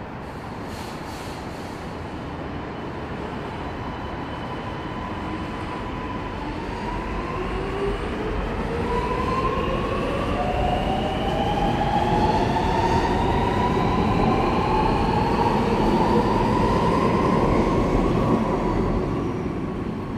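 Alstom Metropolis metro train pulling away from the platform. Its traction motors whine in several tones that rise in pitch as it accelerates, over a steady rumble that grows louder and then falls away near the end.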